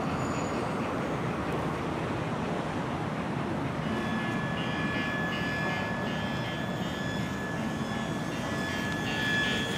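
Steady outdoor background noise, with a thin high steady tone coming in about four seconds in.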